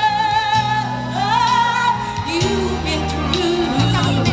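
A woman singing a song with long held, wavering notes over amplified instrumental accompaniment with a steady bass.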